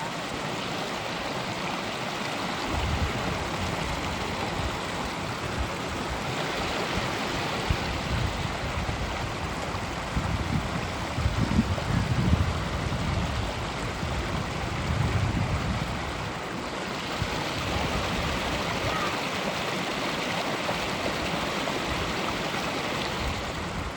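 Creek water running and babbling steadily, with uneven low rumbling mixed in during the first half.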